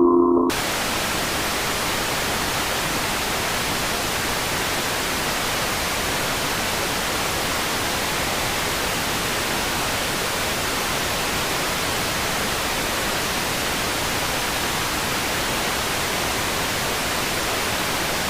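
Tones cut off about half a second in, giving way to a steady, even static hiss.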